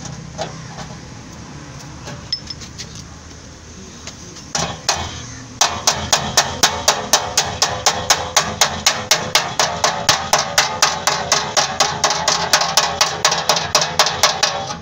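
Hammer tapping on a car's steel bumper reinforcement bar to knock out a dent, in quick, even blows of about four to five a second that start about five seconds in. Before that there is only a faint low hum and a few light clicks.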